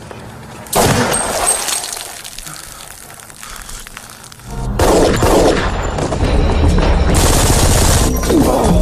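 TV drama soundtrack: a sudden gunshot a little under a second in, fading out over a few seconds, then from about halfway a loud, dense stretch of gunfire mixed with music.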